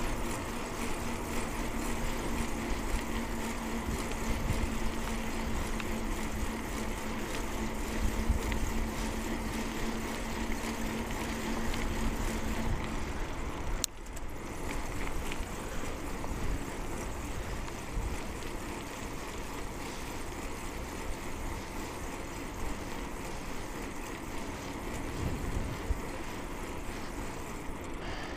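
Wind buffeting a clip-on microphone and tyre noise from a bicycle riding on the road, with a steady hum through the first half. A sharp click comes about halfway through, after which the noise is a little quieter.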